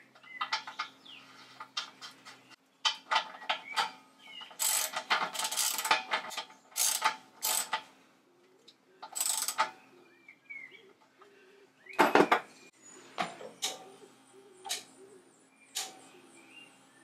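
Brass valve being screwed back into a steel air compressor tank and its pipe refitted by hand: irregular metallic clicks, rattles and scraping in bursts, with one sharp knock about twelve seconds in.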